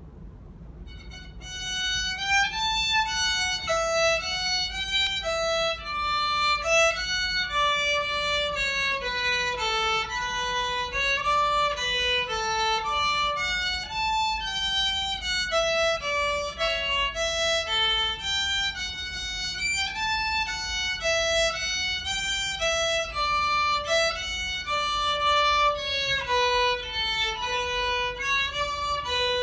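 Solo violin, bowed, playing a march tune in a steady run of single notes that starts about a second and a half in.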